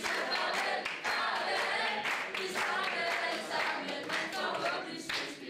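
A mixed group of young voices singing a song together in chorus, with hand-clapping throughout.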